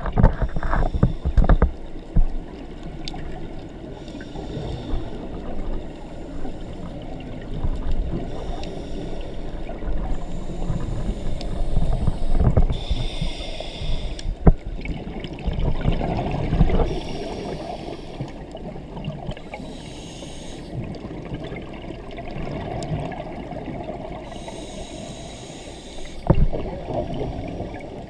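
Scuba diver breathing through a regulator, heard through an underwater camera housing: hissing inhalations several times, with low bubbling and rumbling of exhaled air between them.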